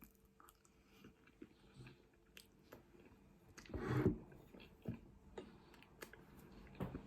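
A person chewing food close to the microphone: soft wet mouth clicks, with one louder bite or chewing burst about four seconds in.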